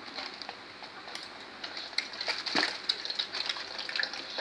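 Irregular small clicks, taps and rustling of things being handled, with no motor running.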